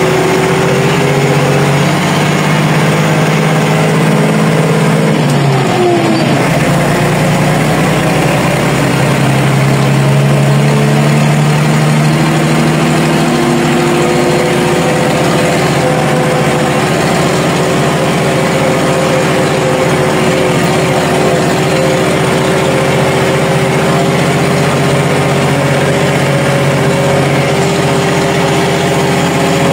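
Tractor engine running steadily, heard from inside the cab while driving across a harvested corn field. Its note falls briefly about six seconds in, then settles into a steady run.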